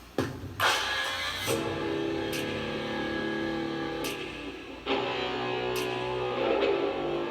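Background music: guitar chords with drum hits, the chord changing twice.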